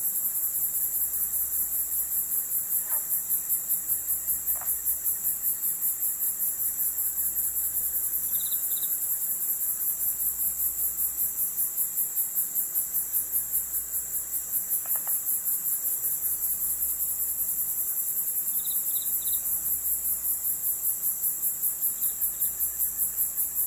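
Crickets chirping in a steady, rapid pulse of about five chirps a second, a rural night chorus. Twice, a few short, faint high notes sound over it.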